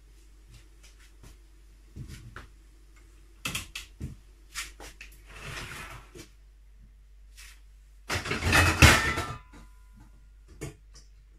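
Kitchen handling sounds: scattered knocks and clicks, a short rustle, then a louder clatter about eight seconds in that leaves a brief ring.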